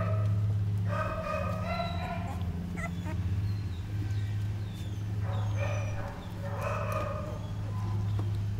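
Young puppies crying and whining in several short, high-pitched squeals, over a steady low hum.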